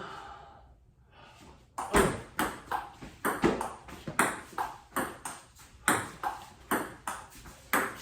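Table tennis rally: the ball clicking off the paddles and bouncing on the table, about three hits a second, starting about two seconds in.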